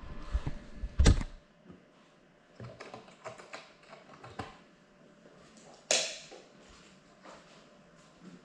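Handling noise from the drone's onboard camera: a heavy thump about a second in as it is picked up or set down, then scattered light clicks and taps, and one sharper click about six seconds in. The motors are not running.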